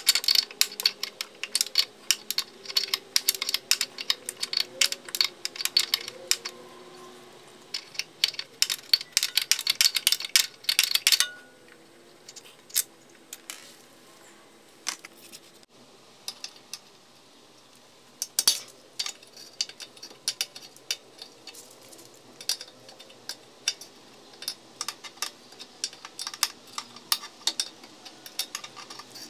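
Hand wrenches on the ball-joint nut of a BMW E46 front control arm: quick runs of metallic clicking, densest in the first eleven seconds and stopping suddenly, then scattered clicks and clinks of the tools.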